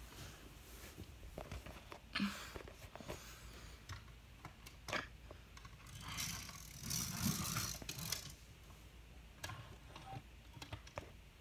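Diecast pullback toy cars being handled on a wooden shelf: scattered clicks and knocks, with a longer rough scraping stretch about two-thirds of the way through as a car is pressed down and drawn back to wind its pullback motor.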